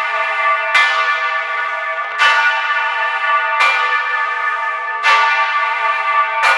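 'Santa Reparata', the 5,385 kg great bell of Florence Cathedral, cast by Antonio Petri in 1705 and tuned to La2, heard close up in the bell chamber as it swings. Its clapper strikes about every second and a half, five strokes in all, and each one rings on under the next.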